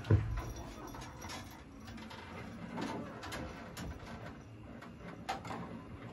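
Quiet room noise with a few faint, short clicks and knocks, the sharpest about five seconds in.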